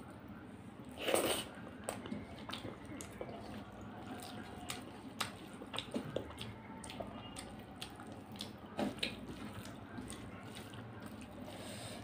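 Wet squishing and clicking of fingers kneading rice into chicken curry gravy on a metal plate. The sounds come as irregular short squelches, with one louder burst about a second in.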